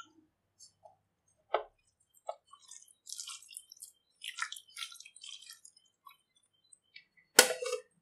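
A hand squishing and mixing raw chicken pieces in a wet spice-and-flour marinade in a bowl, with scattered squelches and wet crackles. A single sharp knock comes near the end.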